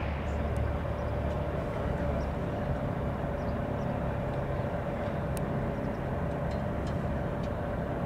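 Cessna 425 Conquest I's twin Pratt & Whitney PT6A turboprops running at low taxi power: a steady hum with a thin steady whine over a low rumble.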